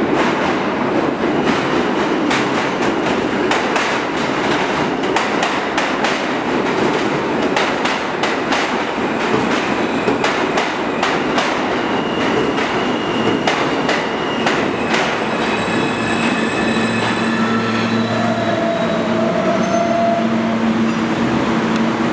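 R160 subway train pulling into the station, its wheels clacking over rail joints in a rapid run of clicks while a faint squeal and whine rise as it brakes. About sixteen seconds in it comes to a stop and settles into a steady hum.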